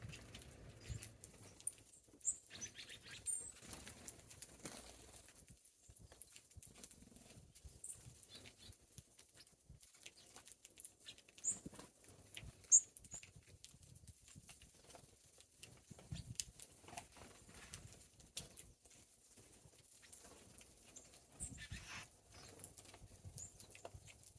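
Small birds feeding: a few short, high chirps scattered through, with brief wing flutters and light scattered taps.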